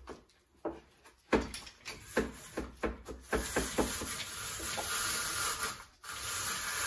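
Green papaya being shredded on a handheld grater: a run of quick rasping strokes, about two to three a second, for the first half. After that a steady hiss takes over, with a brief break about six seconds in.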